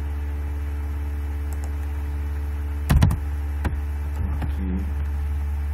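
Computer keyboard and mouse clicks: a loud cluster of clicks about three seconds in and a single click shortly after, over a steady low hum.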